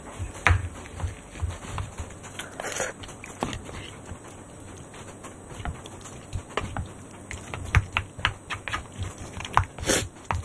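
Wooden spoon and chopsticks clicking and scraping against a wooden bowl as rice is mixed and eaten, in irregular light taps, with soft chewing between them.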